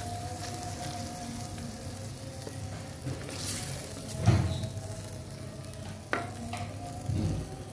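Chicken masala sizzling in a clay pot (kundi) as a spoon stirs it, with a few knocks of the spoon against the pot, the loudest a little past halfway and two sharper clicks near the end.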